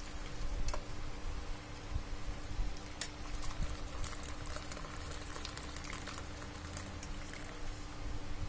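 Hot ginger water poured from a pot through a wire-mesh strainer into a glass bowl, splashing and gurgling steadily, with a few light clicks along the way.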